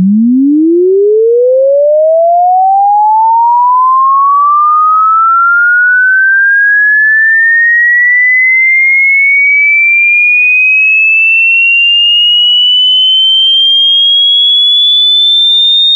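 A single pure electronic test tone sweeping steadily upward in pitch, from a low hum to a high whistle-like tone. It climbs quickly at first and then more gradually, at a constant loudness.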